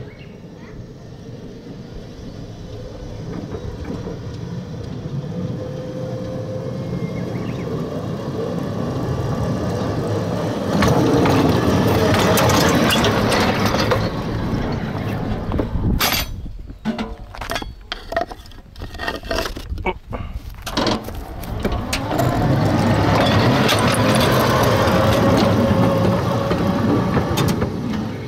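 Small mine-railway train running along its track, rumbling and clattering and growing louder, with a run of sharp clanks about two-thirds of the way through.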